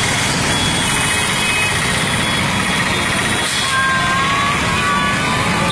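Steady engine and road traffic noise.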